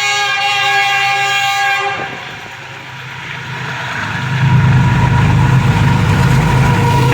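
Diesel locomotive horn sounding a sustained multi-tone blast that cuts off about two seconds in. After a brief lull, the locomotive's engine comes in loud and steady with a deep hum as it pulls the train away.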